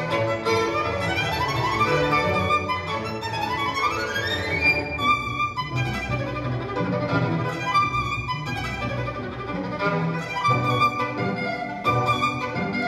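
Recorded violin music played back over loudspeakers in a listening room, with a low accompaniment beneath. The violin climbs in quick rising runs in the first few seconds.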